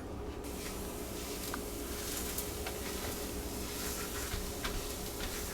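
Butter sizzling in a hot pan as small street-taco tortillas warm in it, with light crackles scattered through, over a steady faint hum.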